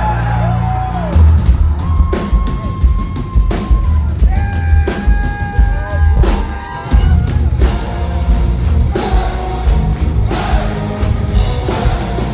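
Power metal band playing live at high volume: heavy drum-kit hits and bass, with held notes on top from about four seconds in.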